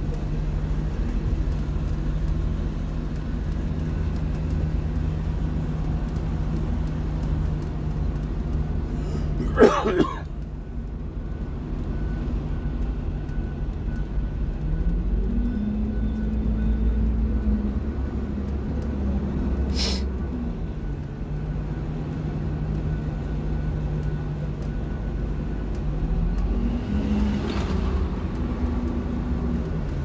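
School bus engine running, heard from inside the bus as it creeps along in slow traffic; its pitch rises and holds twice as the bus pulls ahead. A brief loud noise comes about ten seconds in, and a sharp click about twenty seconds in.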